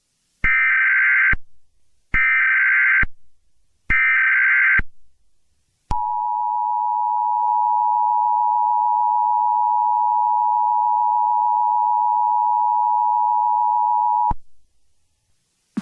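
Emergency Alert System SAME header: three identical screeching bursts of digital data tones, each just under a second long, followed by the EAS two-tone attention signal (853 Hz and 960 Hz together), a steady dual tone held for about eight seconds before cutting off.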